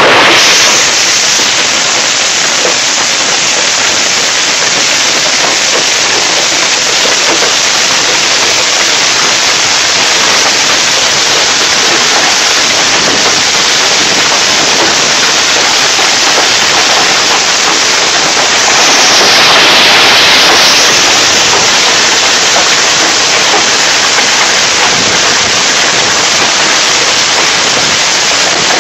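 Heavy hail mixed with rain pelting down in a dense, steady hiss, swelling louder for a couple of seconds about two-thirds of the way through.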